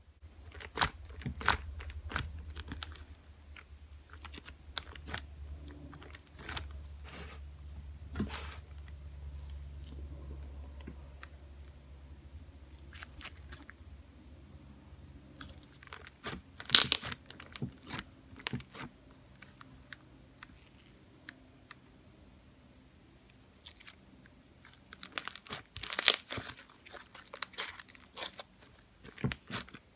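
Fluffy slime being stretched, squished and kneaded by hand, giving sticky crackles and pops, with the loudest bursts of crackling about 17 and 26 seconds in. A low steady hum runs under the first dozen seconds.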